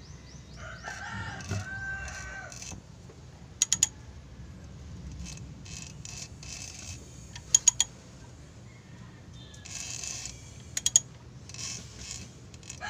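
Ratchet wrench clicking on the crankshaft pulley bolt of a Toyota 4K engine as the crank is turned by hand to find the timing mark: three quick bursts of a few sharp clicks each, the loudest sounds. A rooster crows in the background about a second in and again near the end.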